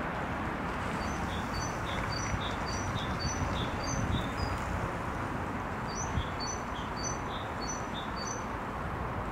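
A small songbird singing a quickly repeated phrase of short high whistled notes, about two phrases a second, in two bouts a couple of seconds apart, over a steady low background rumble.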